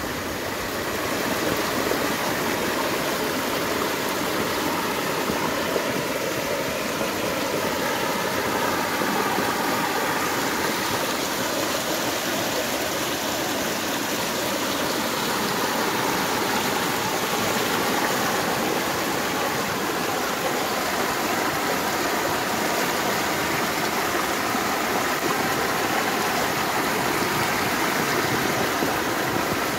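Floodwater rushing and churning across a road and around tree trunks, a steady, unbroken rush of water.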